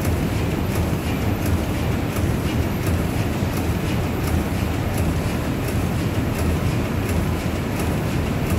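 Steam pumping engines of the Woudagemaal running steadily: a dense low rumble of machinery with a light tick about twice a second.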